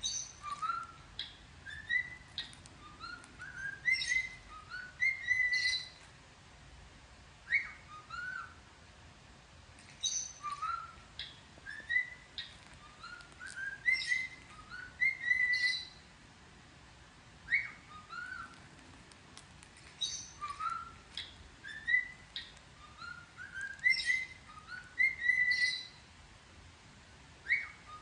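Cockatiel whistling a learned tune: short rising whistled notes leading into a held note, with the same phrase coming round about every ten seconds, roughly three times.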